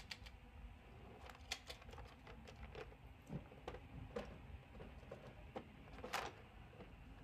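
Faint, irregular clicks and knocks of someone rummaging through a wooden bedside drawer, with a slightly stronger knock about six seconds in.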